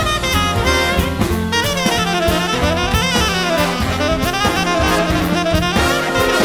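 Jazz music with a saxophone lead over a drum kit.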